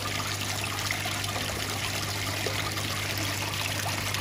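Steady trickle of running water with a constant low hum underneath.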